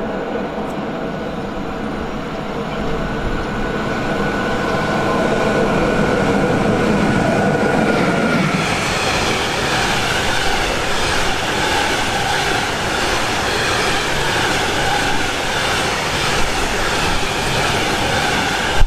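A train approaching and passing close by on the line. A steady whine comes first as it draws near, then from about halfway the loud rolling noise of the wheels takes over, with a rhythmic clatter.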